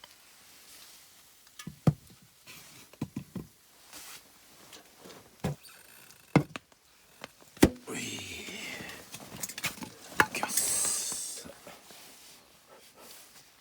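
Something being handled: a series of sharp knocks and clicks, then two stretches of rustling, the second louder, about eight and ten seconds in.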